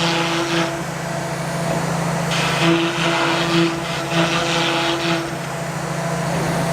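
CNC router carving MDF: the spindle gives a steady hum while the bit's cutting noise swells and eases every second or so as it moves through the board.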